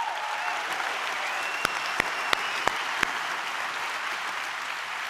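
Audience applauding steadily, with five sharper, louder claps between about a second and a half and three seconds in.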